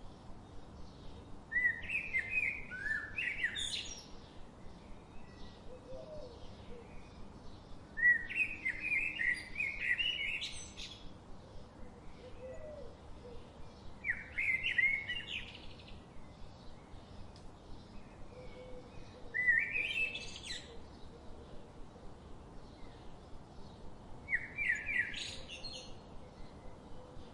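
A wild songbird sings the same short, quick phrase five times, each about two seconds long, with a pause of several seconds between them. Each phrase is a run of high notes that sweeps upward at its end.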